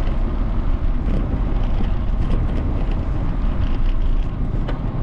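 Steady low rumble of wind buffeting the microphone and bicycle tyres rolling on a paved path while riding, with faint scattered clicks.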